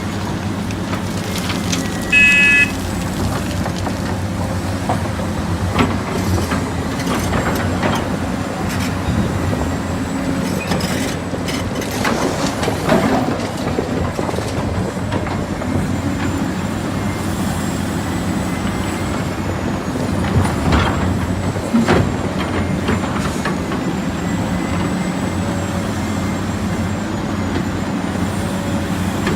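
Heavy diesel construction machinery running steadily, with a short horn toot about two seconds in and a few scattered knocks.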